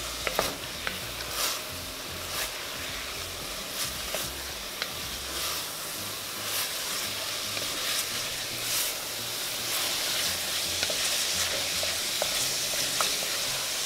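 Partly browned ground beef with onion and spices frying in a white enamelled pot, sizzling steadily, while a wooden spoon stirs through it, scraping and tapping now and then.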